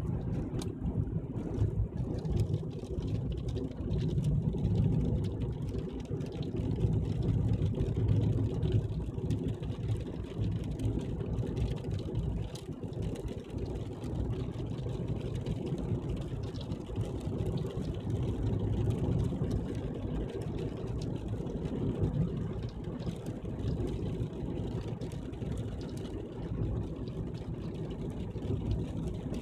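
Engine and road noise heard from inside a moving car: a steady low rumble that swells slightly now and then.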